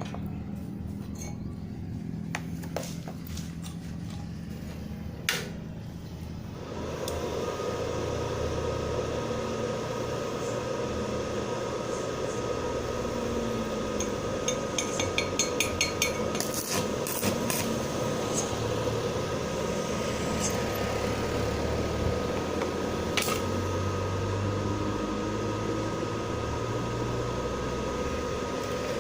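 Stick (arc) welding with a small Lakoni 450-watt inverter welder: a few sharp taps, then about seven seconds in the arc is struck and runs as a steady crackling hiss with a faint high whine, with a cluster of sharper clicks midway.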